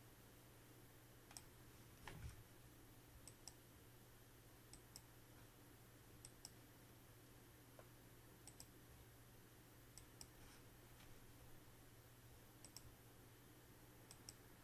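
Faint computer mouse clicks, several in quick pairs, every second or two, over a low steady hum.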